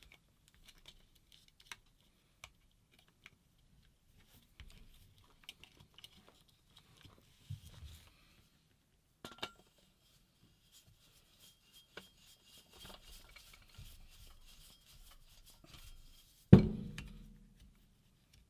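Dye DM4 paintball marker being aired up: light clicks of handling, then a faint hiss of compressed air for a few seconds, and a single loud, sharp shot as the marker fires once, about two seconds before the end. A small air leak is present.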